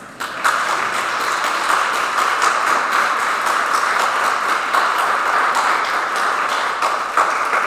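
Congregation applauding: many hands clapping together, starting about half a second in and fading out near the end.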